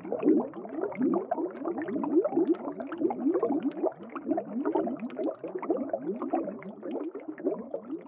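Bubbling water, like underwater bubbles: a dense, unbroken stream of short rising blips.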